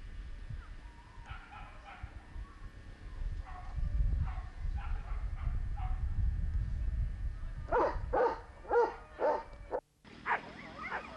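Dogs yelping and barking excitedly: faint yips at first, then a quick run of about five loud barks near the end. The sound cuts out for a moment just before more yelps.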